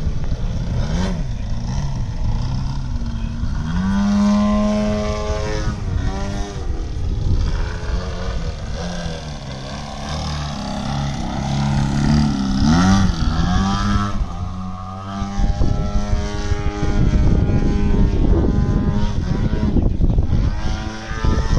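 Radio-controlled aerobatic model airplane flying, its propeller engine note rising and falling repeatedly in pitch as it throttles through manoeuvres and makes passes.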